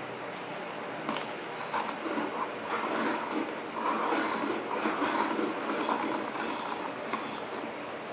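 A small desktop pencil sharpener shaving a wooden pencil: an irregular scraping, grinding rasp with a few clicks, from about a second in until near the end.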